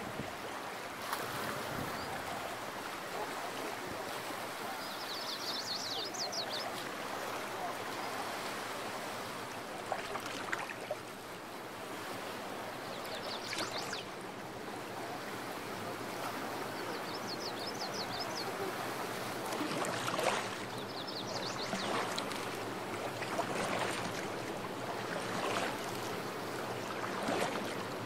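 Shallow water rushing and rippling steadily over rocks, with a small bird's rapid high trill heard four times in the background.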